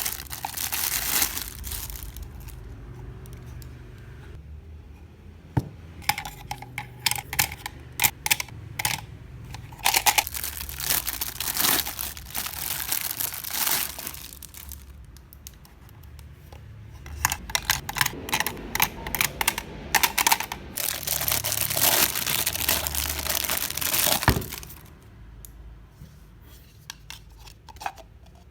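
Packaging being torn open and crinkled by hand, in long runs of crackling and tearing with quieter rustling spells between them.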